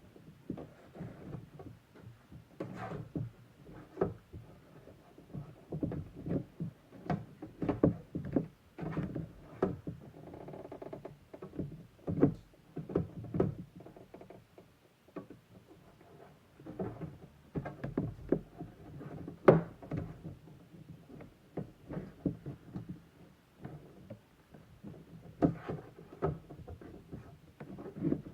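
Hands working at a Funko Pop's cardboard box and plastic packaging: irregular taps, knocks and rustles, with one sharper knock about two thirds of the way through.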